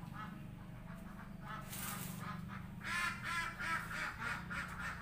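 Domestic ducks quacking: a flurry of short, rapid calls that starts about a second and a half in and gets louder after about three seconds, over a low steady hum.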